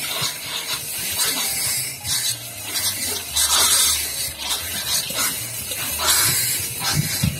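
Water running and splashing from a mineral-spring tap, an uneven hiss that surges and fades.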